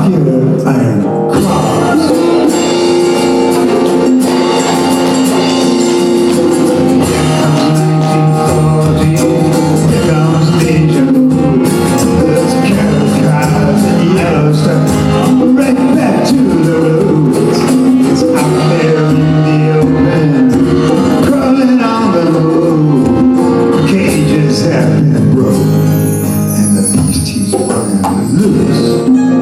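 A live folk-rock band playing an instrumental passage, with violin, acoustic guitars, mandolin and djembe and hand percussion.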